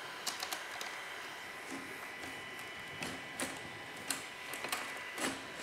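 A scattered series of light clicks and knocks as a Festool KA 65 Conturo edge bander is tilted down and settled into its stationary adapter plate, over a faint steady hiss.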